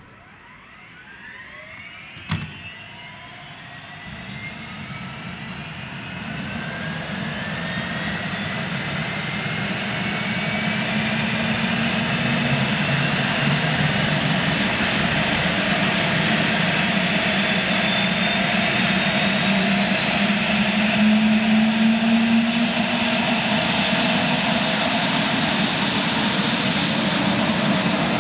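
Eurocopter AS 365 Dauphin helicopter's twin turboshaft engines starting up: a whine rising in pitch as the turbines spool up and the main rotor begins to turn. It grows louder for about the first ten seconds, then holds steady, with one sharp click about two seconds in.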